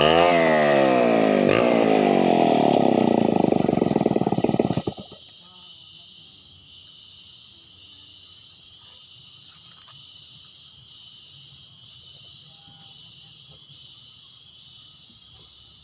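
Chainsaw running and revving, its pitch swinging up and down, then the engine cuts off about five seconds in. Afterwards a steady high insect drone remains, pulsing about once a second.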